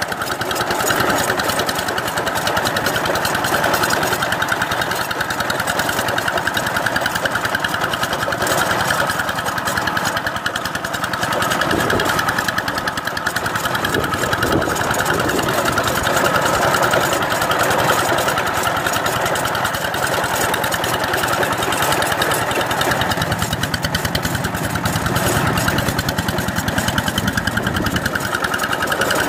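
Two-wheel walking tractor's single-cylinder diesel engine running steadily under load with a fast, even chug as its rotary tiller works through wet paddy mud.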